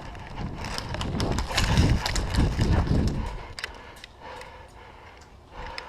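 Hurried footsteps of someone moving on foot, with gear knocking and rustling against the microphone, loudest in the first three seconds and then dying down.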